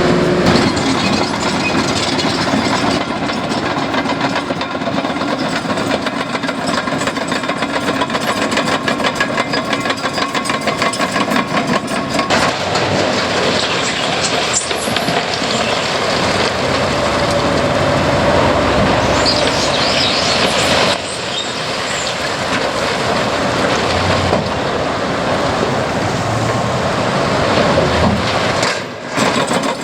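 Heavy construction machinery working: diesel engines run under a rapid, even clatter.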